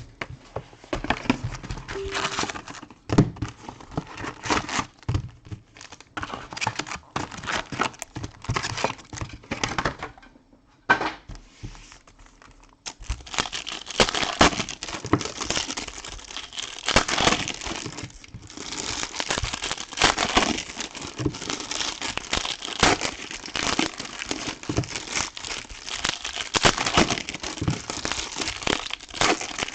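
Plastic wrapping on trading card boxes and packs being crinkled and torn open by hand: a run of irregular rustling and crackling, with a brief lull about ten seconds in.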